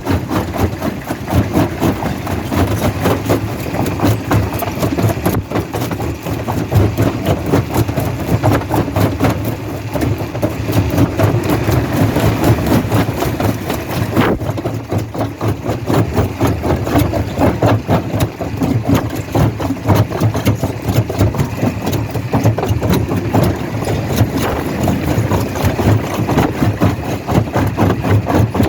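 Rock crusher running under load: a steady heavy-machinery rumble with a continuous dense rattle of stone being broken.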